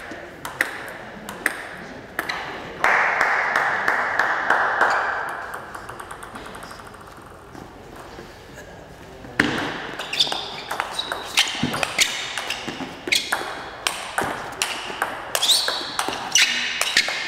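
Table tennis ball clicking off the bats and the table. A few scattered ticks early on, then a quick run of clicks back and forth during a rally from about halfway through.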